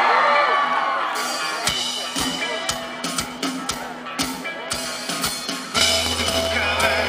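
Live rock band starting a song: audience cheering fades, then the drummer plays a beat on the kit, kick drum and cymbals, and about six seconds in the bass and the rest of the band come in.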